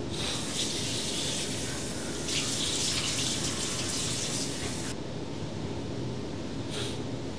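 Bathroom sink tap running into the basin, shutting off about five seconds in, with one short burst of water near the end.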